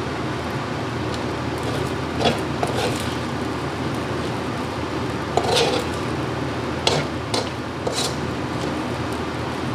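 Metal ladle scraping and clinking against a metal wok as fried rice is stirred and turned, a handful of sharp clinks spread through, the loudest about five and a half seconds in, over a steady hiss.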